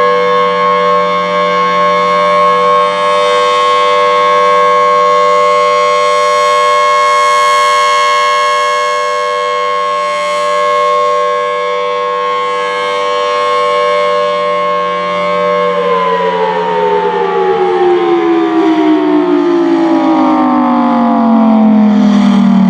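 Federal Signal Thunderbolt 1000T outdoor warning siren, set to chopper level 3, sounding its steady alert tone with overtones and slow swells in loudness. About 16 seconds in, the tone begins winding down, its pitch falling steadily: the end of the 3-minute alert cycle.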